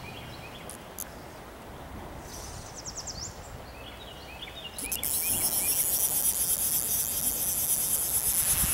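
Fly reel's click-and-pawl ratchet buzzing as line is wound in while playing a hooked trout; it starts suddenly about halfway through, after a quiet stretch of stream-side ambience.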